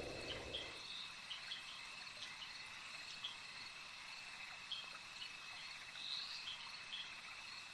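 Crickets chirping faintly: a steady high trill with short chirps scattered over it.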